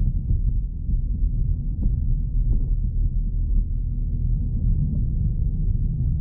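Steady low rumble of a car being driven slowly, heard inside the cabin: engine and tyre noise, with a few faint knocks about two and two and a half seconds in.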